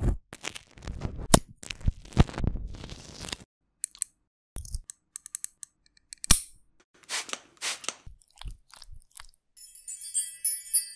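Crunching, scraping and clicking sound effects of a scalpel and then nail clippers cutting through a thick ingrown toenail, with one sharp snap of the clippers about six seconds in. A bright sparkling chime rings near the end.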